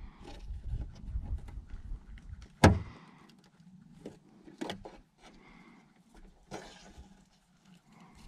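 Opel Astra J side indicator lamp being levered out of the front wing with a plastic trim tool: scraping and plastic clicks, with one sharp snap about two and a half seconds in as the lamp's retaining clip is worked loose, then a few smaller clicks as it comes free.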